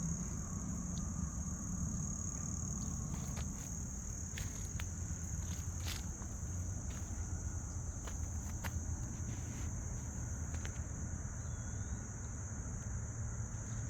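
Insects chirring in a steady, high-pitched, unbroken drone, over a low background rumble, with a few small clicks scattered through.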